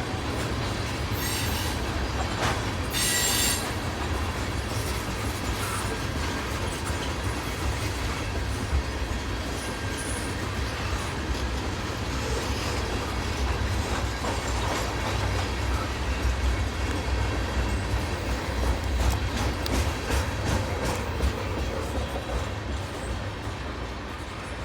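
Freight train rolling past with a steady low rumble of cars and wheels and a clicking of wheels over rail joints. Brief high-pitched wheel squeals come twice in the first few seconds.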